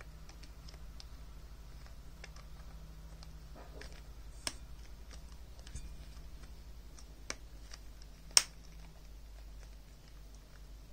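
Light plastic clicks and taps from hands working a HyperX Cloud Alpha headset's headband slider and lock parts, with one sharp click about eight seconds in. A low steady hum runs underneath.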